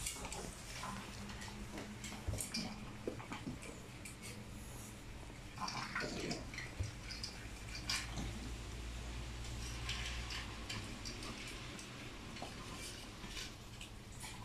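Small dogs eating dry kibble from stainless steel bowls: scattered light clinks of the metal bowls on the tile floor and crunching of the food.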